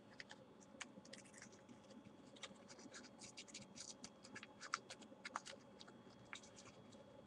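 Faint paper rustling and crinkling as a sheet of paper is folded and tucked by hand, with scattered small scratches and clicks.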